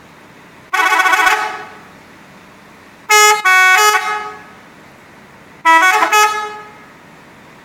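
Bus telolet horn, the multi-tone musical air horn of Indonesian buses, sounded three times. Each blast is a short run of stepped notes lasting about a second.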